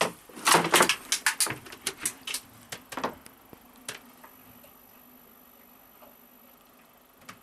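A quick run of sharp knocks and clicks on wood inside a small boat cabin, thinning to a few scattered ticks after about a second and a half. In the second half only a faint steady hum remains.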